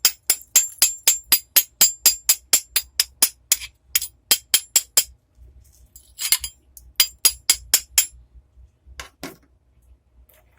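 Hammer striking metal in rapid, evenly spaced blows, about four or five a second, with a ringing edge to each hit. The blows pause briefly near the middle with a short scrape, then a second quick run follows, and two duller knocks come near the end.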